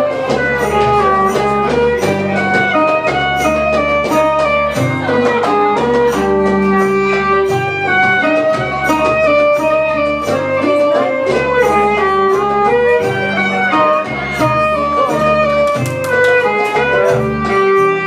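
Live belly-dance music from a small acoustic band: a violin carrying the melody over plucked mandolin and guitar, with a steady beat.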